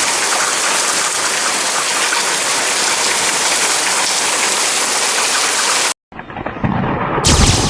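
Heavy rain pouring steadily, splashing hard on surfaces. After a sudden break about six seconds in, a deep rumble of thunder builds, with a sharp crack near the end.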